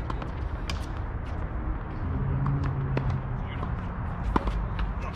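Tennis ball being struck by rackets and bouncing on the court: a handful of sharp knocks, the loudest about four seconds in, over a low steady rumble of background noise.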